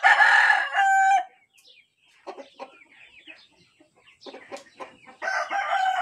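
Rooster crowing twice: one crow ending on a held note about a second in, and a second crow starting about five seconds in, each a rough call that ends on a long held note.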